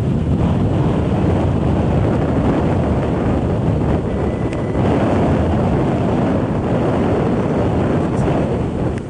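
Wind blowing across the microphone: a loud, steady rumbling rush of wind noise.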